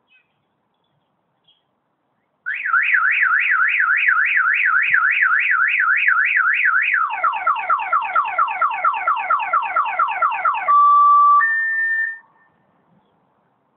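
Electronic car alarm siren cycling through its patterns: a fast up-and-down warble starting a couple of seconds in, then quick repeated falling sweeps, then two steady tones, before it cuts off suddenly.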